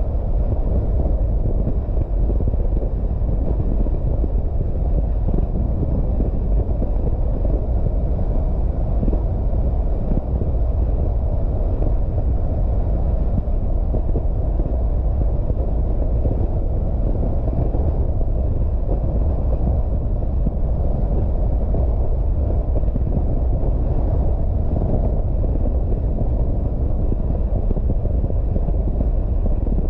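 Steady low rumble of a car driving along the road: tyre and wind noise, heaviest in the deep bass, with no change in pace.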